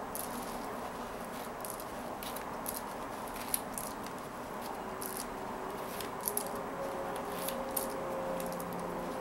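Plastic pony beads of a peyote-stitch kandi panel clicking lightly as the panel is handled and string ends are worked and tied off, a dozen or so scattered small clicks over a steady background hiss.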